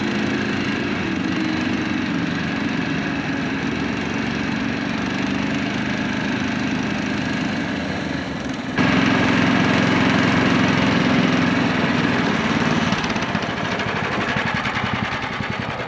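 Small engine of a Snowdog tracked snow machine running steadily while riding. About nine seconds in it is suddenly louder and closer, then eases off near the end.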